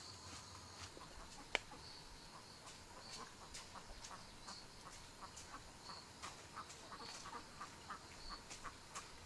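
Faint poultry calls: short chirps repeating irregularly, with one sharp click about one and a half seconds in.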